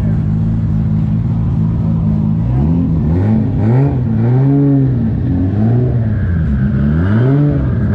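Nissan Skyline R34's engine idling steadily, then revved several times from about two and a half seconds in, its pitch rising and falling with each rev.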